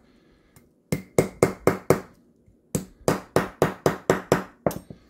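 Soft plastic watch-repair hammer tapping around the edge of a snap-on (pry-type) watch case back to press it into place. Two quick runs of light taps, about four or five a second, with a short pause between.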